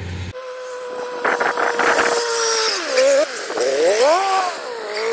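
Small tracked rice carrier's engine running with a steady whine that wavers up and down in pitch from about three seconds in, with a few knocks about a second in.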